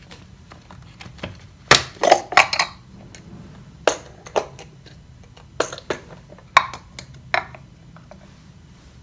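Kitchenware knocking and clinking: about nine separate sharp knocks in uneven clusters, some ringing briefly like glass or crockery being set down or tapped.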